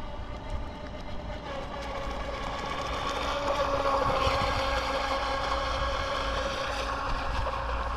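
WLtoys WL915-A brushless RC jet boat running out on the water: a steady motor whine that grows louder over the first few seconds, then holds level.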